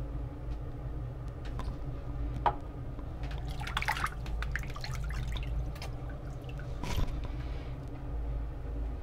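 Water splashing and dripping at a bathroom sink, with a few sharp clicks, over a steady low hum. The splashing is busiest about four seconds in, and there is another sharp clack near seven seconds.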